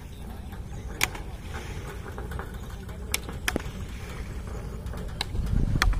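Steady low rumble of wind on the microphone beside open water, with about five sharp clicks scattered through it and a louder gust near the end.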